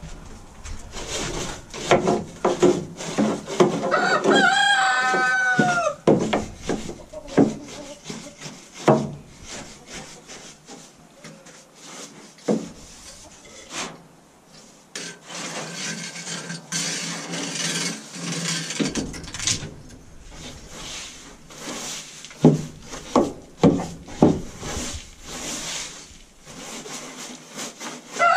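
Broom scraping and brushing over the coop's wooden boards and walls in irregular strokes, with a rooster crowing once about four to six seconds in.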